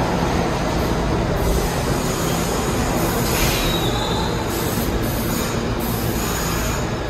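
New York City subway train running through an underground station, a steady loud rumble of wheels on rails, with a short wheel squeal about three and a half seconds in.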